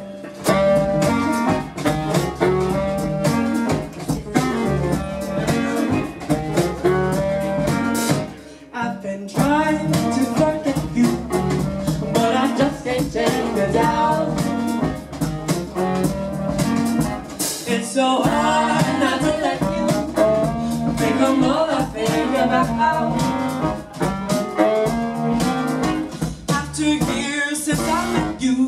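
Live soul-blues band playing: electric guitar, upright bass, saxophone and keyboard over a steady beat, with several women's voices singing. The band drops out briefly about eight seconds in, then comes back.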